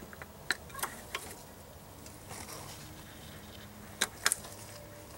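A few sharp clicks and taps, some near the start and a pair about four seconds in, over a faint steady low hum.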